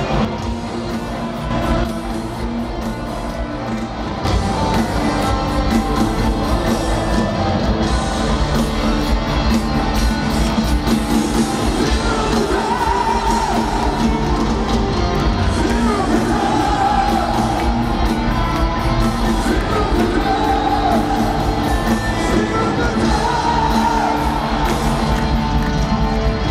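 Loud amplified live band music heard from within a concert crowd, with singing and yells from the audience. It gets louder about four seconds in.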